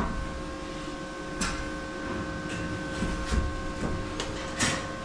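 Several light knocks and scrapes from wooden cage parts being handled and positioned, the loudest near the end, over a faint steady hum.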